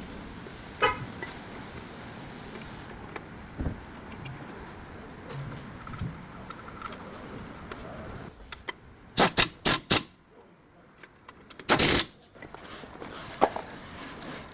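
Tool and metal sounds from rear brake work on a car: scattered light clicks, then four quick sharp knocks, and a short, louder noisy burst a couple of seconds later.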